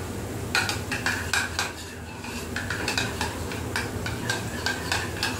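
Metal spoon stirring yogurt in a bowl, clinking against the bowl's sides about three times a second with a brief lull about two seconds in.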